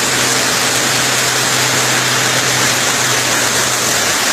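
Floodwater rushing over a road and spilling off its edge, with the steady hum of a truck engine underneath that fades out about four seconds in.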